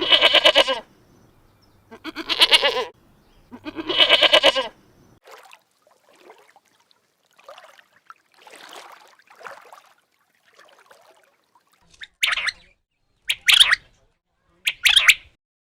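Animal calls: three loud, drawn-out pitched calls about two seconds apart, then a run of fainter calls, then three short, sharp, higher-pitched calls near the end.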